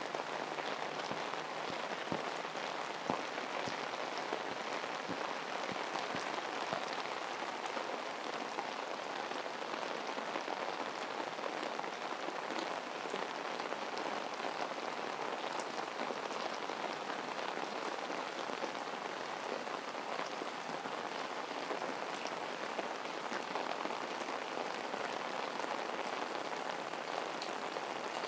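Heavy tropical rain falling steadily, with scattered sharp drop hits close by, most of them in the first several seconds.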